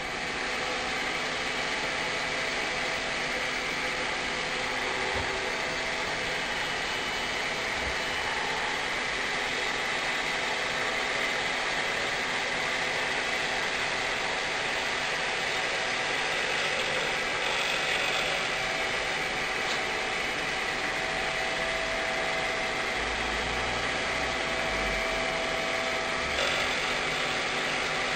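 CNC router spindle running steadily while milling a glider canopy mold, a constant whine over the hiss of cutting.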